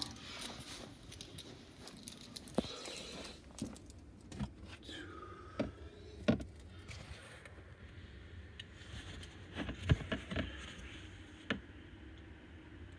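Metal lighters being handled, with scattered clicks and clinks of metal on metal and on a hard surface, about eight in all.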